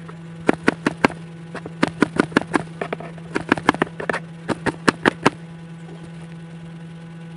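Kitchen knife chopping white onion on a cutting board: a run of quick, uneven knocks of the blade on the board, stopping about five seconds in. A steady low hum runs underneath.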